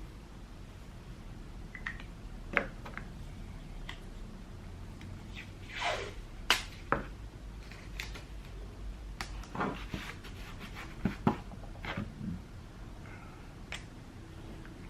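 Scattered clicks, taps and knocks from panels and tools being handled on a workbench, a few of them sharp, over a low steady hum.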